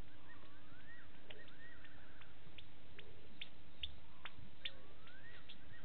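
A whistled animal call at night: a wavy rising note followed by a run of quick repeated notes, heard twice about five seconds apart. Scattered sharp clicks and a steady low hum sit underneath.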